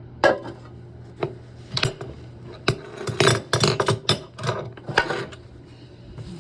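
Irregular scraping and clicking of small metal parts as a toilet supply stop valve is taken apart by hand.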